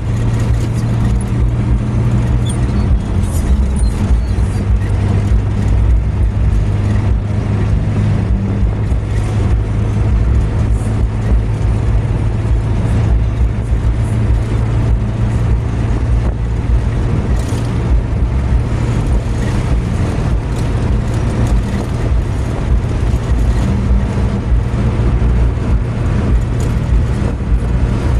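Steady engine hum and tyre and road noise of a car cruising on a highway, heard from inside the cabin, with no marked changes.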